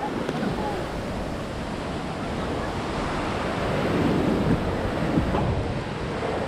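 Broken ocean waves washing through the shallows, a steady rush of churning foam, with wind buffeting the microphone.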